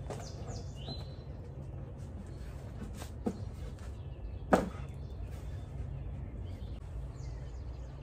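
Wooden beehive boxes being shifted on their base, giving a few wooden knocks, the loudest about halfway through. Birds chirp faintly over a steady low hum.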